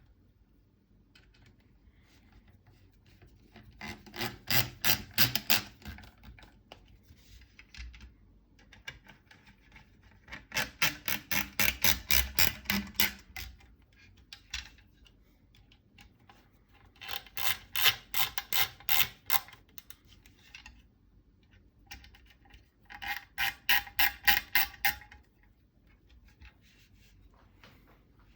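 A ratcheting T25 Torx driver clicking as the four barrel screws of a SCAR 15P are run in one after another: four separate runs of quick, even clicks, about six a second, with short pauses between.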